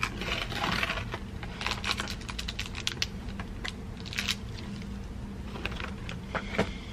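A snack box and its plastic-wrapped packets being handled and opened by hand: irregular crinkles, rustles and small sharp clicks, with a short burst of rustling about half a second in and another around four seconds.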